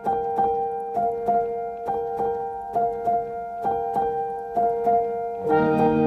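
Background piano music: a gently repeating pattern of notes over a held tone, with fuller chords joining about five and a half seconds in.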